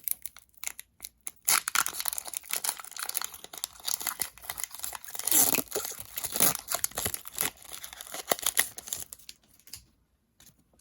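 Foil wrapper of a Pokémon booster pack being torn open and crinkled by hand, a dense run of crackling and tearing that dies away near the end.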